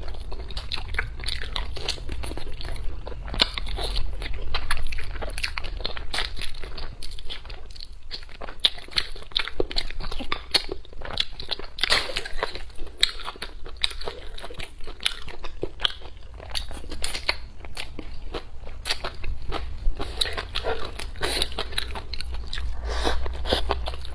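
Close-miked chewing and biting of a person eating braised pig trotter and pig intestines: a dense, irregular run of mouth clicks and crunches.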